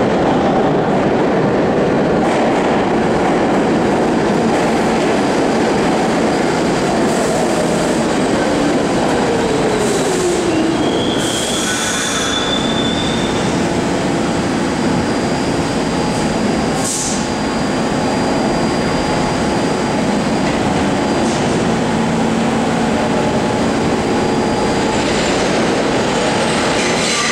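Steady loud rumble of a New York City subway train in the tunnel, with a whine falling in pitch over the first ten seconds. Short hisses come around the middle, and a brief high wheel squeal about eleven seconds in.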